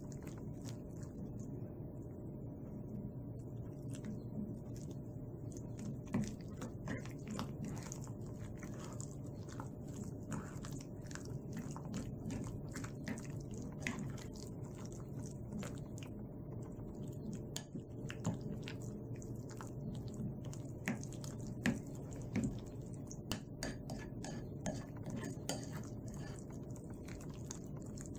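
Hands squeezing and turning chicken pieces in a wet flour-and-egg batter in a bowl: irregular wet squelching with small clicks and taps against the bowl.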